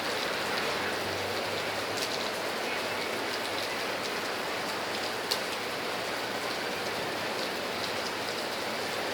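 Steady rain falling, an even hiss of many drops, with a couple of sharper single drop hits about two and five seconds in.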